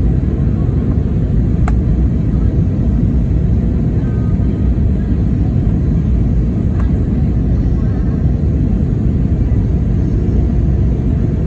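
Steady low roar of an Airbus A320neo's engines and airflow, heard from inside the passenger cabin in flight. A couple of faint clicks sound in the cabin about two seconds in and again about seven seconds in.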